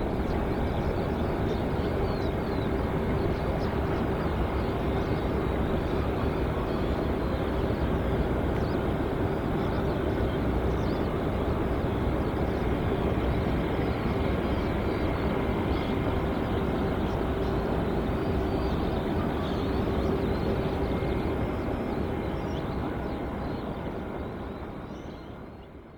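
Boeing 747 jet engines running steadily: a loud, even rush with a constant hum and a faint whine over it, fading out near the end.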